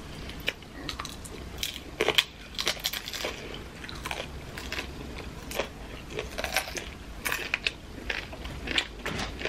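Close-up crunching and chewing of crispy fried taquitos, with irregular crisp crunches several times a second.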